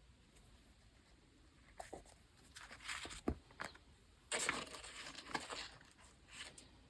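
Paper and diary-decorating materials being handled on a desk: a few light taps and clicks from about two seconds in, a sharp click near the middle, then about a second and a half of paper rustling.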